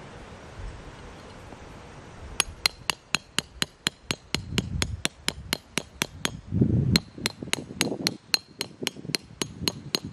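A tent peg being hammered into the ground: a quick, even series of sharp, ringing strikes, about four a second, beginning about two seconds in, with a few duller thuds among them.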